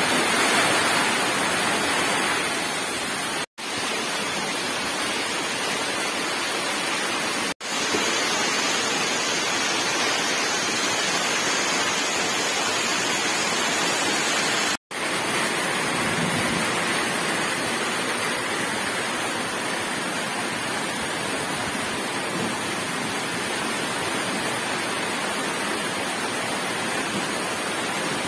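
Heavy typhoon rain pouring and a flooded, muddy creek rushing past, a steady rushing noise. It drops out briefly three times.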